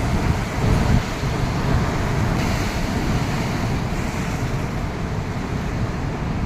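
Sea waves washing on a beach, with wind buffeting the microphone in a steady low rumble.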